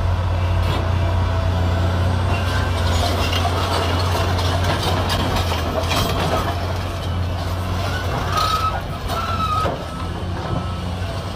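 Caterpillar hydraulic excavator's diesel engine running with a steady low drone, while rocks clatter and knock as the machine works a pile of blasted rock. Two short high whines sound near the end.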